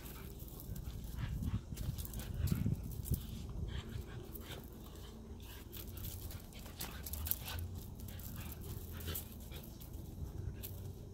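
Two Siberian huskies, an adult and a puppy, play-fighting: low play growls and panting, louder about one to three seconds in, with scattered clicks and scuffs of paws on gravel.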